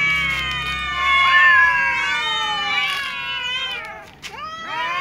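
Several cats meowing at once, long overlapping meows, loudest about a second in; a brief lull just before the end, then fresh meows. Hungry cats begging at meal time.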